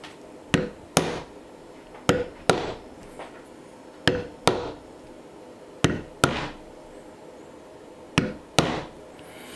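Mallet striking a leather-stamping tool into a leather holster blank backed by a stone slab: sharp strikes in pairs, five double blows about two seconds apart, as the pattern is stamped along the border.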